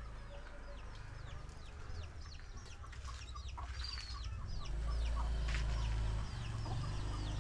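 Many short, falling bird chirps from several birds, scattered throughout, over a low rumble that swells for a second or so about five seconds in.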